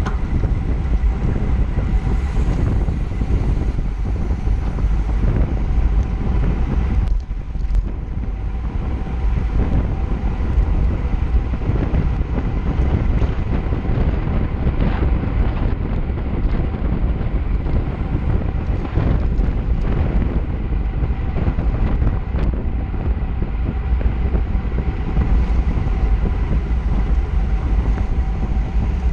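Heavy, steady wind noise buffeting the microphone of a camera on a road bike riding fast in a race pack, strongest at the low end, with a brief lull about seven seconds in.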